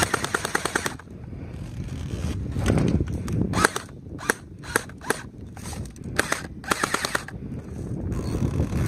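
Airsoft gun firing in rapid bursts of closely spaced shots: a burst of about a second at the start, several short bursts and single shots in the middle, and two longer bursts near the end.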